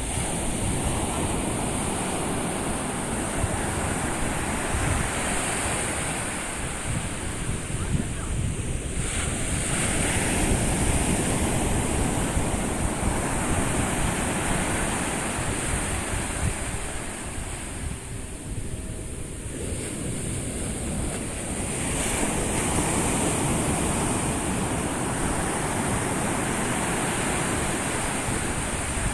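Ocean surf breaking on the shore, a continuous wash that swells as waves crash, notably about nine seconds in and again near twenty-two seconds, with a lull in between. Wind buffets the microphone with a low rumble.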